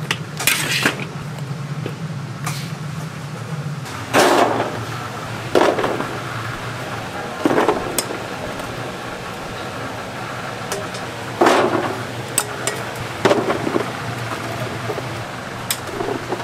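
Metal ladle and spatula clanking and scraping against a cast-iron cauldron and stainless-steel trays as sauced fried chicken is scooped out and spread. The knocks come every one to three seconds, over a low steady hum.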